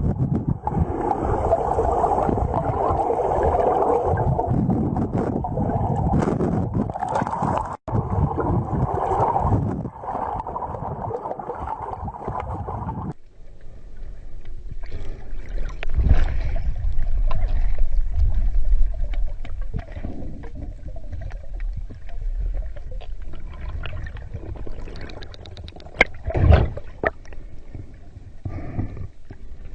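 Rushing river water heard above the surface. About thirteen seconds in it cuts to the muffled, low underwater rumble and gurgle of a diver moving in the river, with scattered clicks and knocks.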